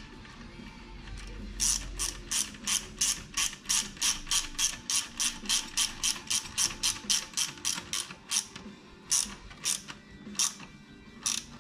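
Hand ratchet wrench clicking on the back-swing while bolts are tightened down, about four clicks a second, then slower with gaps near the end.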